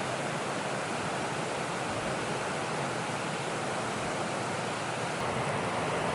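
Steady rushing noise with no distinct events, starting abruptly a step louder at the beginning.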